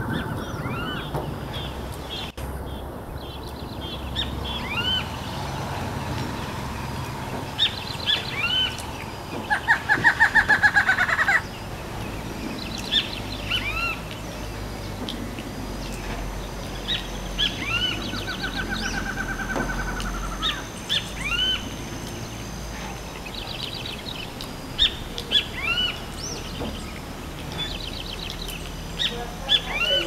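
Barred antshrike singing: two songs, each a fast run of rapidly repeated notes, the louder about ten seconds in and another near twenty seconds. Short high chirps are scattered throughout.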